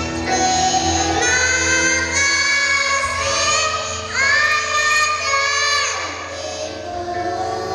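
A group of young children singing a song together in unison over backing music, holding one long note near the middle.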